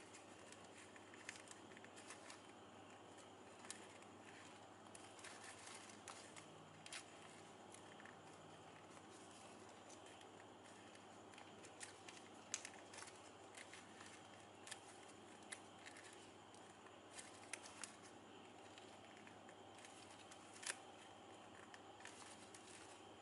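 Faint crinkles and small clicks of shiny ribbon being pulled strand by strand and pressed into rose petals by fingers, over a low steady hiss. The sharpest clicks come about halfway through and near the end.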